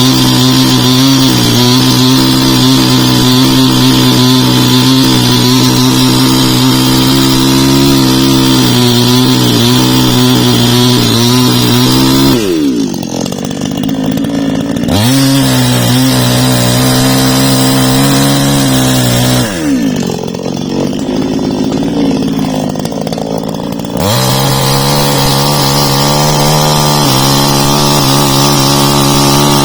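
Husqvarna two-stroke chainsaw running at high revs. About twelve seconds in the throttle is let off and the engine falls toward idle, then revs back up. It drops to idle again at about twenty seconds and comes back up to full revs near twenty-four seconds.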